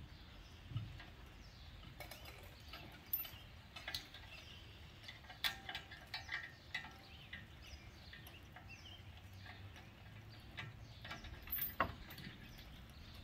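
Scattered metallic clinks and sharp knocks of a lifting chain being rigged to a boat's inboard engine, the loudest knock near the end, over a faint low hum.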